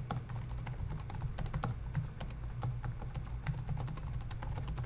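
Typing on a computer keyboard: an irregular run of key clicks, several a second, over a steady low hum.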